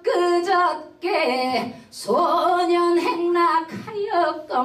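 A woman singing solo into a microphone with no accompaniment: long held notes that slide from one pitch to the next, in three or four phrases separated by short breaths.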